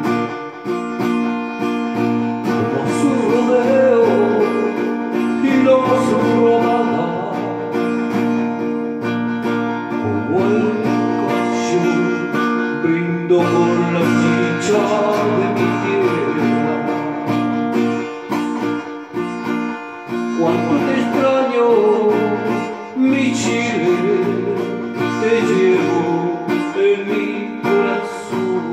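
Acoustic guitar strummed in a steady rhythm, with a man's voice singing at times over the chords.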